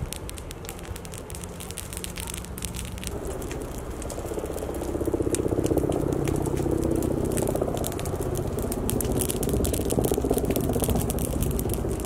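Forest ground fire crackling as it burns through pine litter and undergrowth, with many sharp snaps. A low steady rumble grows louder from about four seconds in.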